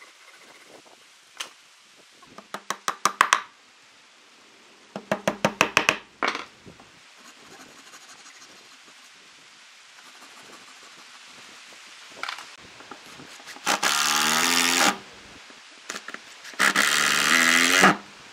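Flush-cut hand saw trimming wooden dowels flush with the surface: two quick runs of short sawing strokes, each getting faster and louder over about a second, with a few light taps. Near the end, a Makita cordless driver runs twice, about a second each time, driving screws into the wood.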